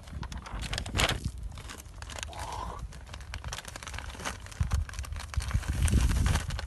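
Plastic product packets crinkling and rustling as they are handled, in irregular crackly bursts, with low rumbling in the second half.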